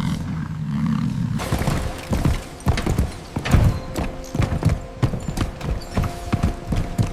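Cattle hooves clopping in many uneven steps, several a second. A low hum runs for about the first second and a half, before the steps begin.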